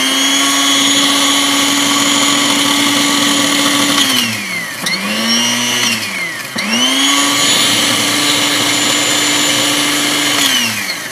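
Black & Decker FusionBlade blender motor running in pulses. It spins up and runs steadily for about four seconds, then winds down. It gives a short spin-up and stop, then runs steadily again for about four seconds and winds down near the end. The blender is failing after four uses: the plastic on its motor spin nut has melted, and the owner calls it toast.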